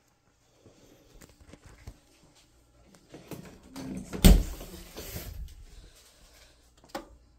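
Footsteps and rustling as a handheld phone is carried through rooms, with one loud thump about four seconds in and a smaller knock near the end.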